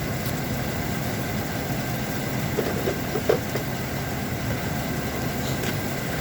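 Engine idling steadily, with a few faint clicks about three seconds in.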